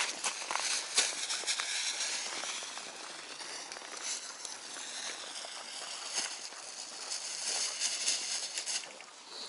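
Crunching of granular, crusty snow on the ice and clothing rustle as an angler shifts about and settles at his fishing hole, with a few sharp crunches in the first second and a steady gritty hiss after.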